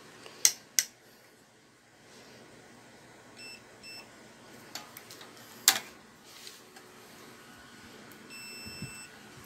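Digital multimeter's continuity buzzer beeping: two short beeps about three and a half seconds in, then a longer beep near the end, the meter's sign of an unbroken connection between its probes. A few sharp clicks as well, the loudest a little after halfway.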